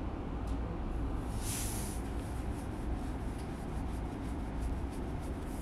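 Steady low background rumble, with a short hiss about one and a half seconds in and faint ticks after it.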